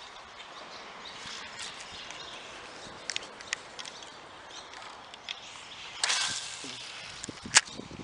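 Handling of a spinning rod and reel: scattered light clicks, a short swish about six seconds in, then one sharp click, the loudest sound.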